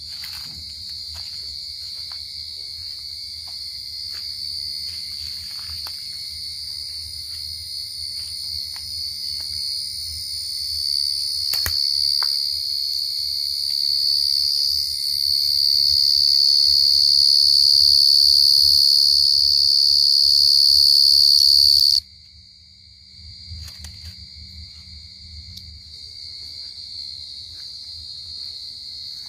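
Field cricket calling close by in one steady, high trill that grows louder as it is approached, then stops abruptly about three-quarters of the way through; other crickets keep calling more faintly.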